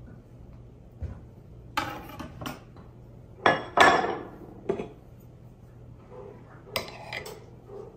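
Scattered knocks and clinks of a knife and a ceramic butter dish being set down on a wooden cutting board, the loudest two knocks close together about three and a half seconds in, with lighter taps before and after.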